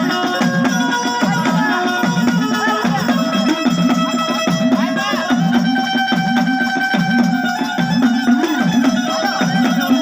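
Instrumental Gujarati folk-devotional music: a quick drum rhythm under held melody notes, with the melody stepping up to a higher note about five seconds in.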